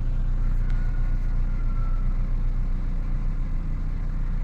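Car engine idling steadily in gear, with a faint high tone for a second or so early in. The engine runs smoothly on a newly replaced ignition coil, with no misfire felt.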